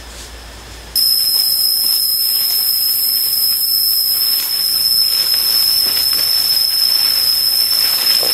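Loud chorus of cicadas: a steady, high-pitched drone with a hiss above it, starting suddenly about a second in.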